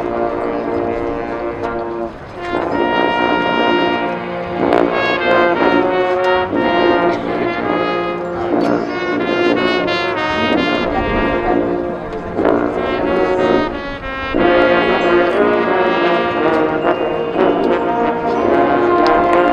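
Marching band playing: the brass section sounds held chords and moving lines, with percussion strokes now and then.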